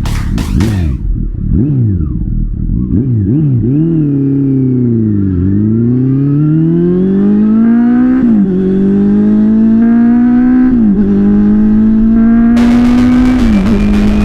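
Honda CB400 Super Four inline-four with a Yoshimura slip-on muffler: a few quick throttle blips and a dip in revs, then accelerating hard through the gears, the revs climbing and dropping back at three upshifts about two and a half seconds apart. The exhaust sound is somewhat muffled.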